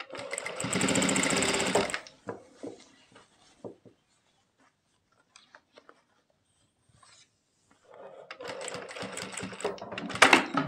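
Jack industrial sewing machine stitching a collar onto a neckline: a loud run of about two seconds at the start, a pause with small clicks of the fabric being handled, then a second, quieter run near the end.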